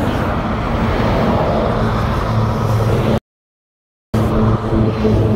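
Motorway traffic passing, with a heavy vehicle's engine running low and steady under the road noise. About three seconds in the sound cuts out completely for about a second, then comes back.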